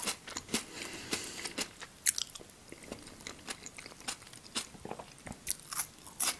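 Close-up eating sounds: a person chewing food, with irregular small clicks and crunches from the mouth, and a sharper bite near the end as a strip of raw red bell pepper goes into the mouth.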